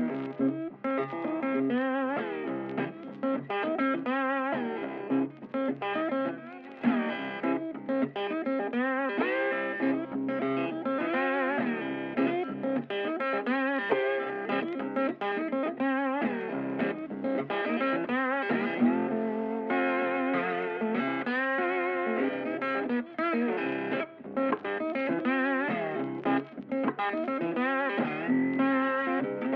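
Background music led by a guitar melody, its notes bending and wavering.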